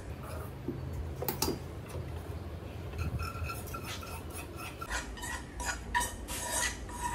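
Metal spoon scraping roasted coconut-spice masala from a pan into a steel mixer-grinder jar, with clinks of metal on metal. In the second half, a steel bowl is tapped and scraped over the jar in a run of quick ticks to knock out the rest.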